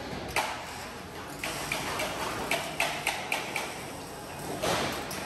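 A quick run of sharp metallic taps and clicks, as from steel sheet being handled or struck in sheet-metal work, about eight in close succession, over a steady low machine hum. A short whoosh comes near the end.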